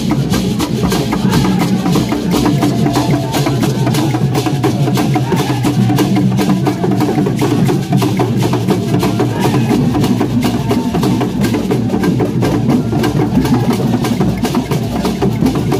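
Traditional Ghanaian drum ensemble of peg-tensioned barrel drums, beaten with hands and curved sticks, playing a fast, steady dance rhythm. Sharp clicking strokes sit on top of the drumming and carry on without a break.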